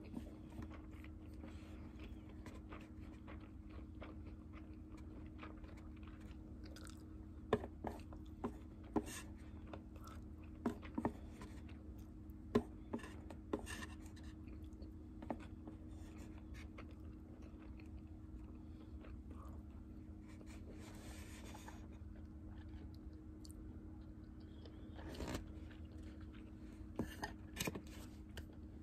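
Chopsticks clicking and scraping against a plastic takeout tray while the last grains of rice are picked up, with quiet chewing. The sharp clicks come in two scattered clusters, over a steady low hum.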